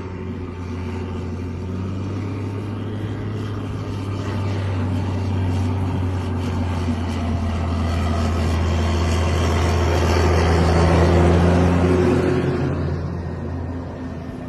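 Motor vehicle engine running with a steady low hum, while a rushing noise swells to a peak about eleven seconds in and then fades.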